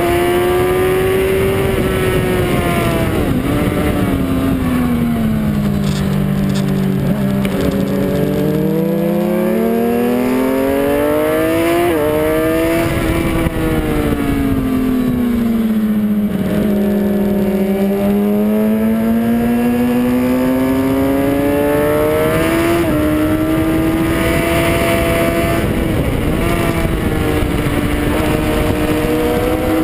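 Onboard sound of a Suzuki GSX-R sport bike's inline-four engine at track speed, over wind rush. The revs fall away twice and build again as the bike brakes and drives through the corners, with quick gear changes heard as sudden jumps in pitch.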